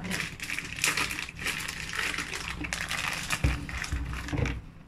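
A plastic bag crinkles and rustles as dried shiitake mushrooms are handled in it and their stalks are broken off: a dense crackle of small clicks, with a couple of low thumps. It dies down near the end.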